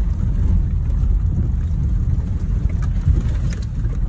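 Steady low rumble of a car driving on an unpaved road, heard from inside the cabin, with a few faint ticks from the tyres on the rough surface around three and a half seconds in.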